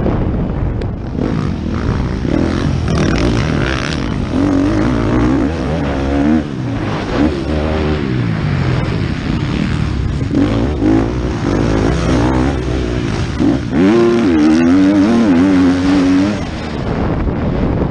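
Motocross bike engine revving hard, its pitch climbing and dropping again and again as the throttle is worked over the rough track, heard from a helmet camera on the rider.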